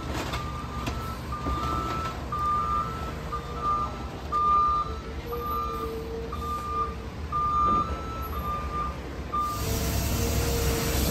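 Heavy-equipment backup alarm beeping steadily about twice a second over the low running of diesel demolition machinery. The beeping stops about nine and a half seconds in, and a louder engine rumble and hiss follow.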